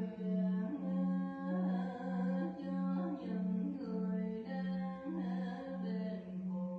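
A voice humming a slow, chant-like melody over a steady low ringing drone that pulses just under twice a second.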